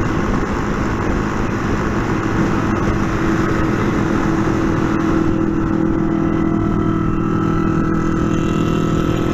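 Motorcycle engine running steadily at highway cruising speed, with heavy rushing noise over it; the engine note grows a little stronger partway through.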